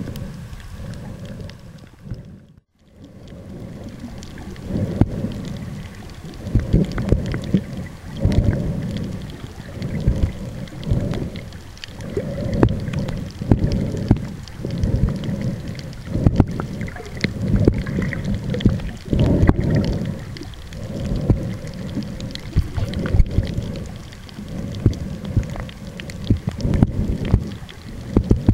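Underwater sound picked up by a camera sealed in a plastic waterproof bag: low rumbling water surges that swell and fade about once every second or so, with scattered crackles and clicks. About two and a half seconds in, the sound nearly drops out for a moment.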